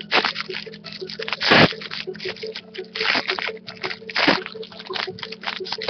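Foil wrapper of a Leaf MMA trading-card pack being torn open and crumpled by hand, a crackling crinkle in bursts, loudest about one and a half seconds in and again around three and four seconds.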